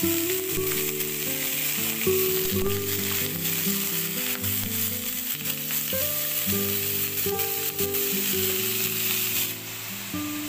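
Raw chicken feet frying in hot oil with sliced onion in a nonstick wok: a steady sizzle that eases near the end, with a wooden spatula stirring them. Background music plays under it.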